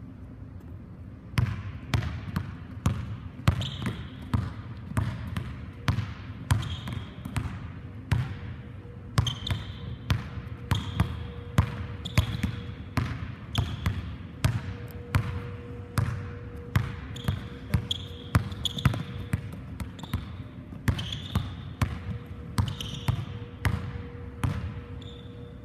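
A basketball dribbled hard on a hardwood gym floor. The bounces start about a second in and keep a steady rhythm of a little under two a second, each ringing briefly in the hall. Short sneaker squeaks on the floor come between some of the bounces.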